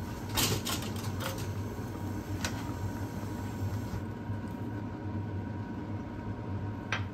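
Cream pasta sauce simmering in a frying pan on a gas stove, with a few small bubble pops over a steady low hum.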